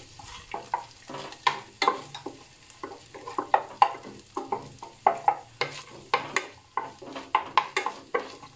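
Garlic frying in olive oil as it is stirred to brown. The utensil scrapes and knocks against the pan in quick, irregular strokes over a light sizzle.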